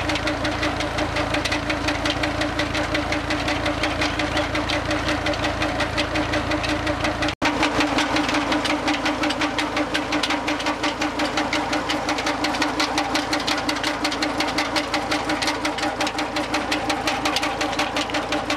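Tractor's diesel engine running steadily, driving a belt-driven tubewell pump. Its rhythmic knocking carries on throughout, broken only by a split-second gap about seven seconds in.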